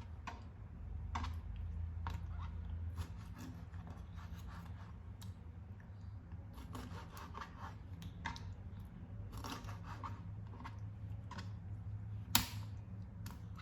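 Kitchen food-preparation handling: irregular snipping, scraping and rubbing with small clicks, over a steady low hum, and one sharper click near the end.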